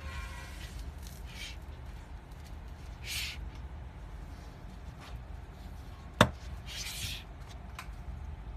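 Hands handling a plastic-and-aluminium dive flashlight and its cord lanyard: a few short rubbing and rustling noises, with one sharp knock about six seconds in. A low steady hum runs underneath.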